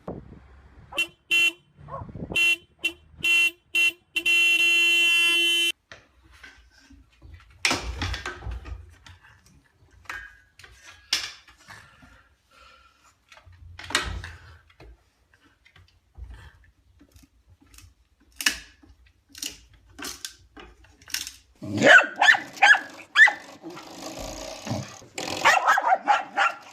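A horn honking in several short blasts, then one long blast about four seconds in. Near the end a dog barks repeatedly.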